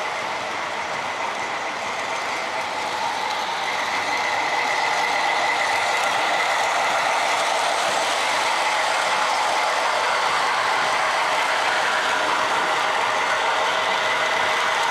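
O scale model train running on the layout track: a steady whirring and rattling of the locomotive's motor gears and wheels. It gets louder about four seconds in and then holds.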